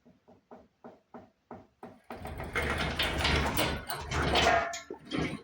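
Workshop handling noise: a run of short, evenly spaced knocks, about three a second, then about three seconds of loud scraping and rattling.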